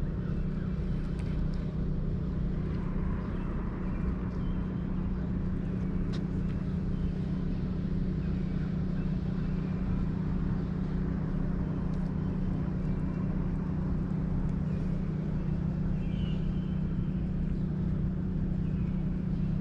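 Steady low mechanical hum under an even wash of background noise, with a few faint ticks.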